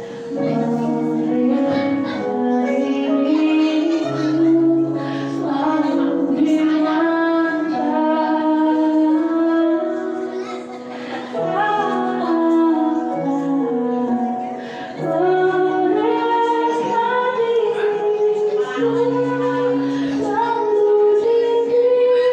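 Music: a song with a sung melody over instrumental backing, playing continuously.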